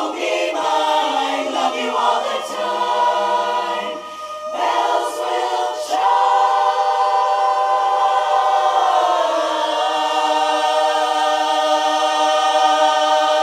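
Women's barbershop chorus singing a cappella, ending the song on a long held final chord of about seven seconds that cuts off cleanly at the end.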